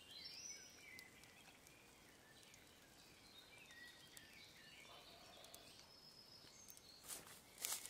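Near silence with faint woodland birdsong: scattered high chirps and short whistles, with a couple of brief rustles near the end.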